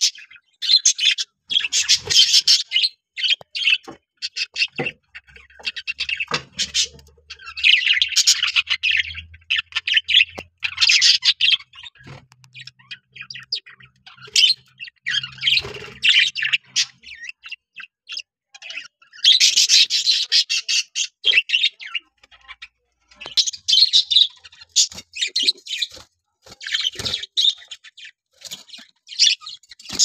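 Budgerigars chirping and chattering in repeated bursts with short pauses, with squawks mixed in.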